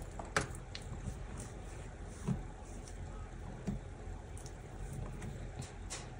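A few scattered soft knocks and light clicks of hands and paper handling the planner on a wooden desk, over a steady low background hum.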